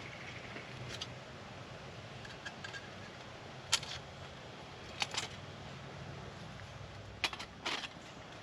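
A handful of sharp clicks and knocks from camp gear being handled and set in place, about six of them at uneven intervals, over a faint low steady hum.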